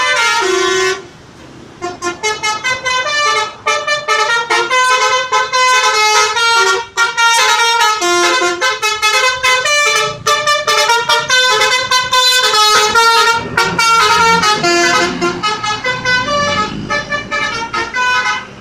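Basuri V3 telolet horn on a bus playing a tune: two held notes at the start, then after a short break a long run of quick notes stepping up and down in pitch, stopping just before the end.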